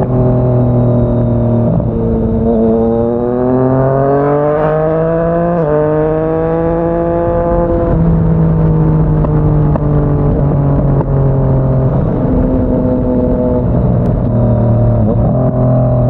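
Yamaha MT-09 inline three-cylinder engine through a Yoshimura R55 slip-on exhaust, accelerating with rising revs, then a sudden drop in pitch about five and a half seconds in at a gear change, after which it pulls on and settles at fairly steady revs.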